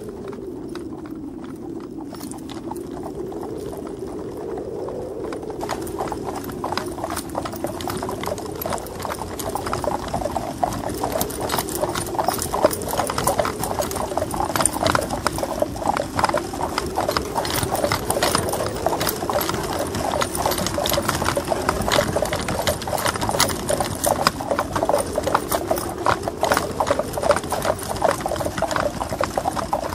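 Hooves of a column of horses walking, a dense, irregular clatter that grows louder from about six seconds in. Beneath it runs a low wavering hum that rises and falls every couple of seconds.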